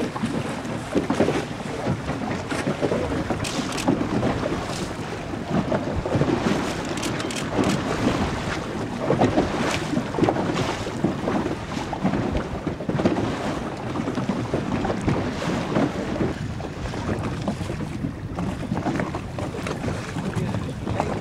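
Wind buffeting the microphone over choppy open water: an irregular rushing noise that swells and fades in gusts, with water splashing.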